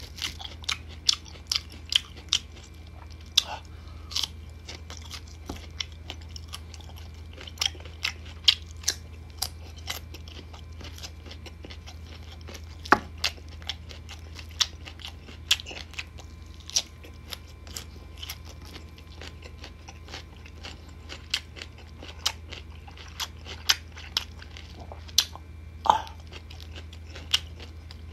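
Close-up crunching and chewing of crisp unripe green mango slices: sharp, irregular crunches every second or so, over a steady low hum.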